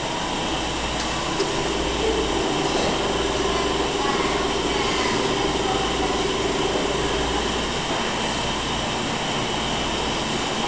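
Small electric motor of a microcontroller-driven globe turning the globe to a programmed location: a steady hum that starts about a second and a half in and stops about six seconds later, over a steady background hiss.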